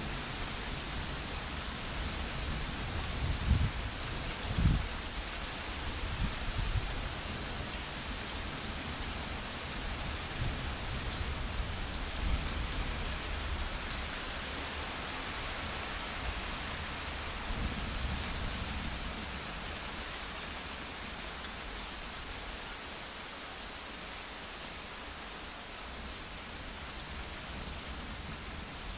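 Steady rain falling, with low thunder rumbling in the first half, loudest about four seconds in, then dying away so that only the rain is left near the end.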